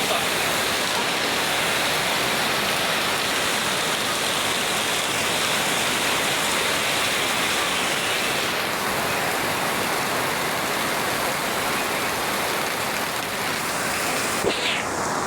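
Heavy rain falling steadily: a dense, even hiss of rain. A single short sharp knock sounds near the end.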